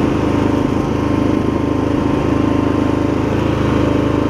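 MTD Lawn Chief garden tractor's 20 horsepower V-twin engine running steadily while the tractor is driven along in gear.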